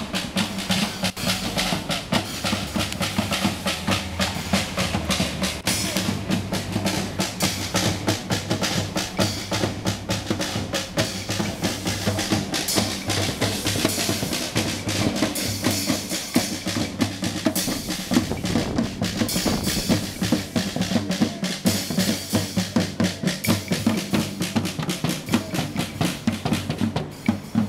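A drum circle: several people beating large drums with sticks in a fast, dense, unbroken rhythm.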